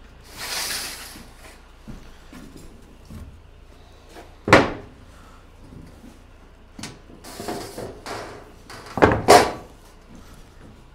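A sheet-metal roofing panel being handled and set into a hand bending brake: a brief sliding swish near the start, a sharp metallic knock about four and a half seconds in, then a run of lighter knocks and two loud clanks near the end.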